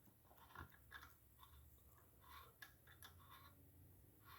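Faint, irregular clicks and creaks of a hand tap being turned into a cast-iron 331 Hemi engine block, cutting tapered threads for crack-repair pins.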